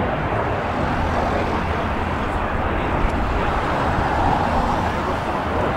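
Hawker Hunter jet flying past, its turbojet engine making a steady rushing noise with a low rumble.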